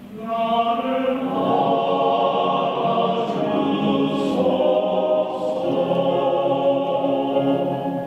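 Background music: a choir singing held, layered notes, coming in at the start and holding steady.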